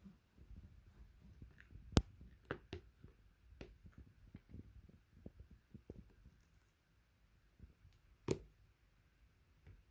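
Cat hiccupping: a few short, sharp clicks, the loudest about two seconds in and another strong one just past eight seconds, over faint low thumps.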